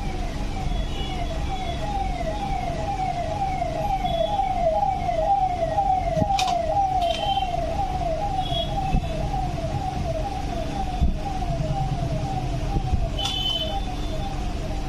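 Emergency-vehicle siren with a fast repeating falling sweep, about three cycles a second, growing louder toward the middle and fading away near the end. Two sharp clicks stand out, about six and thirteen seconds in.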